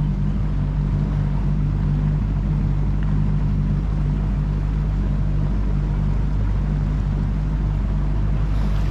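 Motorboat engine running steadily underway, a constant low drone with a deep rumble beneath it.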